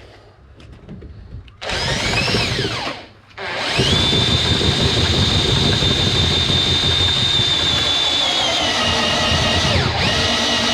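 Handheld power tool: a first short run about a second and a half in whose pitch falls away, then from about four seconds a steady high whine that sags slightly under load near nine seconds in and picks back up.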